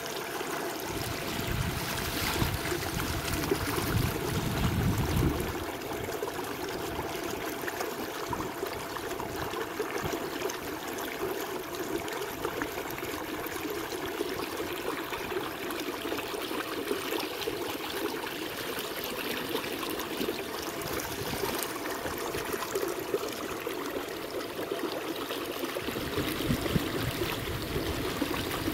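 Water rushing and trickling along the hull of a moving kayak, with a faint steady hum underneath.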